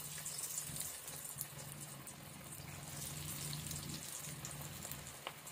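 Bread pakora batter deep-frying in hot oil in a kadai: a steady crackling sizzle of bubbling oil, with a low hum underneath.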